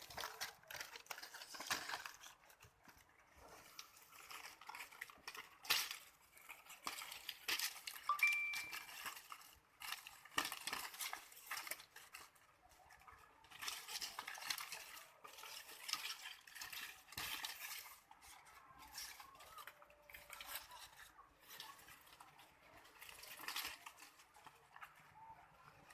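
Irregular clinking and scraping of hard objects being handled, coming in clusters every second or two. About eight seconds in there is one brief high chirp.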